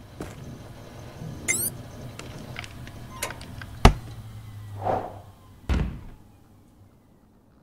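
Sound effects of a laptop: a low steady hum with scattered light clicks, then a sharp loud snap about four seconds in as the MacBook Pro's lid is shut. A short noisy burst follows, then a heavy thud near six seconds that fades out.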